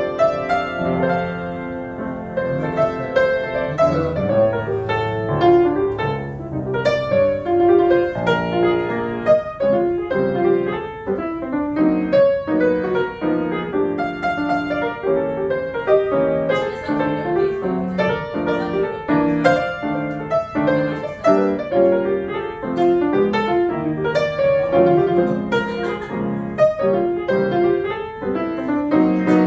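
Solo grand piano played live: a continuous piece of chords and melody with new notes struck throughout.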